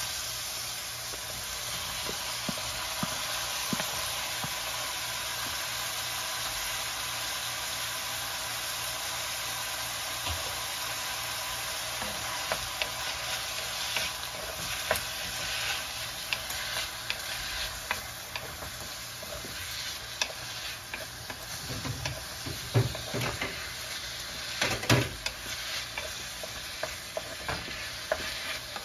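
Chopped onion and diced tomato sizzling in hot oil in a nonstick frying pan, with a wooden spatula stirring and scraping through them. Clicks and knocks of the spatula against the pan come more often in the second half, the loudest about two thirds of the way through.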